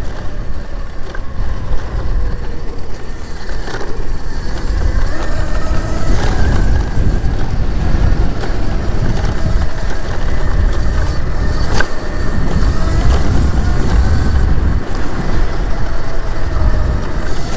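Upgraded Razor electric dirt bike being ridden, its motor whine rising and falling under heavy wind rumble on the microphone. A few sharp knocks from bumps in the track come through.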